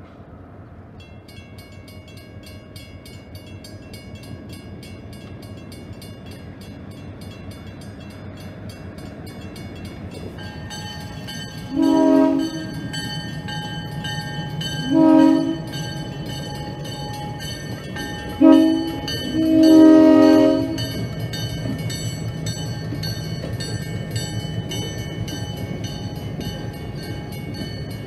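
Grade crossing signal bells ringing rapidly, starting about a second in, then a diesel switcher locomotive blowing its horn in the long-long-short-long crossing pattern as it approaches, its engine rumble growing louder.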